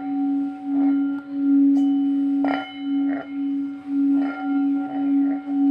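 Resonating metal giving a steady low ringing hum with fainter higher overtones. The tone swells and fades about twice a second, in a beating pulse.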